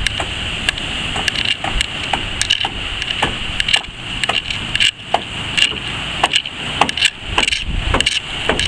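Outdoor shoreline ambience: a low rumble of wind and surf with a steady high-pitched hiss, broken by many irregular sharp clicks and knocks.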